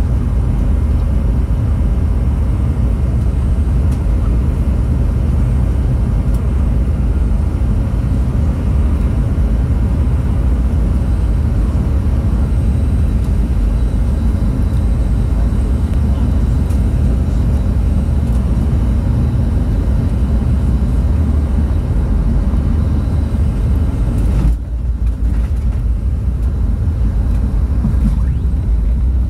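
Cabin noise inside a Boeing 717 landing: the steady low rumble of its two rear-mounted turbofan engines and the airflow, carrying on as the jet comes down and rolls along the runway. About 25 seconds in, the higher hiss drops away suddenly for a few seconds while the low rumble goes on.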